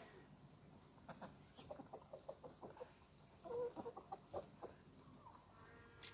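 Chickens pecking at feed on dry ground, a faint run of quick, irregular taps, with a short soft cluck about three and a half seconds in.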